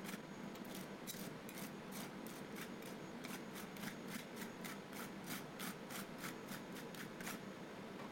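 Metal spatula scrapers scraping and tapping on the frozen ice cream mixture and the cold plate of an ice cream roll maker, a quick run of short strokes at about four a second.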